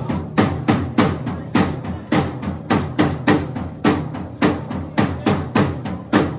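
Live rock band playing a song's opening: a drum kit pounds out an even beat, about three hits a second, over steady droning low bass notes.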